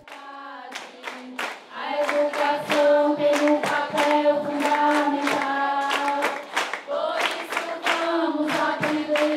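A group of voices singing together in unison, holding long notes, over a quick, steady beat of hand claps.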